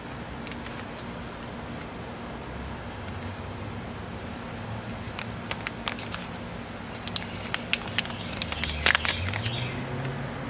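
A paper seed packet crinkling and rustling in the hands, in quick sharp crackles through the second half. Near the end a vehicle engine rises in pitch in the background.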